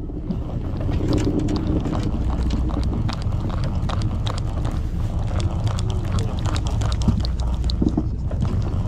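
Boat engine running with a steady low hum and wind buffeting the microphone, over a quick run of small irregular clicks from a conventional fishing reel being cranked to bring in line.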